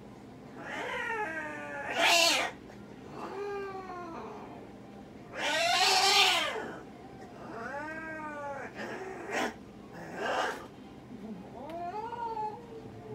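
Domestic cat yowling over and over, about five long drawn-out caterwauls, while it is held down on the exam table for treatment. Two short harsh bursts come between the later calls.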